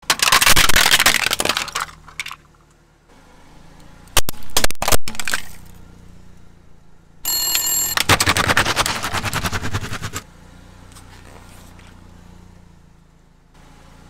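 Plastic toys cracking and crunching under a slowly rolling car tire. There is a long crunch at the start and a few sharp cracks around four to five seconds in. Near seven seconds a toy telephone gives a brief ringing tone, followed by another long crunch lasting about three seconds.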